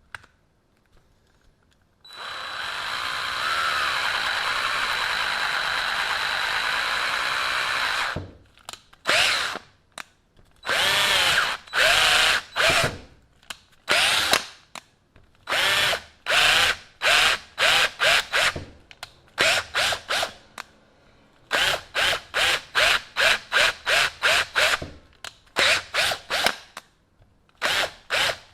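DeWalt DCD710 12-volt cordless drill, freshly restored, running: one steady run of about six seconds with a high whine, then many short trigger pulls that start and stop the motor, coming about twice a second near the end.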